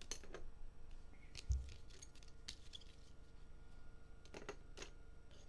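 Light clicks and taps of rigid plastic card holders being handled and set into stands on a wooden table, with a soft thump about a second and a half in and two sharper clicks near the end.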